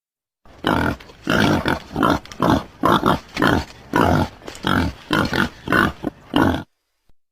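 An animal grunting in a quick series of about a dozen short, rough grunts, roughly two a second, used as a creature sound effect.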